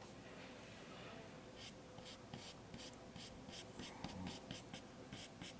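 Faint scratchy strokes of a paintbrush working oil paint onto a canvas: a quick run of short strokes, about three or four a second, starting about one and a half seconds in.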